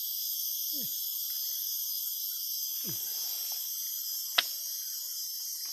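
Steady high-pitched drone of insects. Two short low sounds falling in pitch come about one and three seconds in, and a single sharp click, the loudest sound, about four seconds in.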